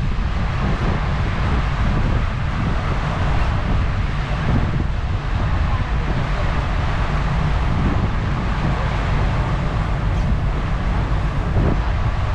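Wind buffeting the microphone on a moving ferry at sea: a steady, loud low rumble with hiss over it.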